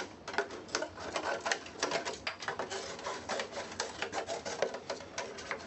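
Tire-changing tools clicking and scraping against the small wheel rim of an electric unicycle while the tire bead is worked off: a rapid, irregular run of clicks, taps and scrapes.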